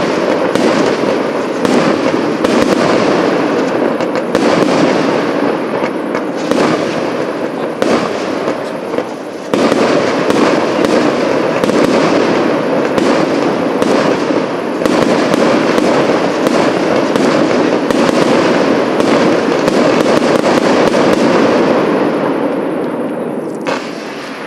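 Fireworks display: a dense, unbroken run of sharp pops and crackling that dips briefly about nine and a half seconds in and fades away near the end.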